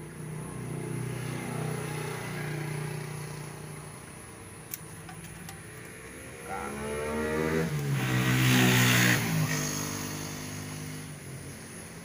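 Motor vehicle engines going by: a steady engine note for the first few seconds, then a second engine rising in pitch and loudness to a peak about two-thirds of the way through and falling away as it passes.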